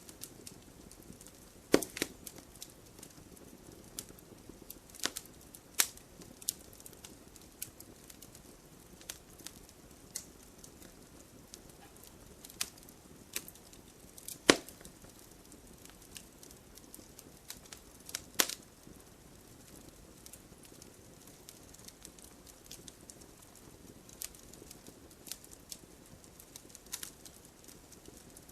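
Wood campfire crackling, with irregular sharp pops and snaps over a soft steady hiss; the loudest pops come about 2, 6, 14 and 18 seconds in.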